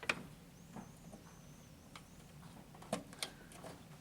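A few sharp clicks and knocks of plastic and metal computer parts being handled: one at the start and two close together near the end.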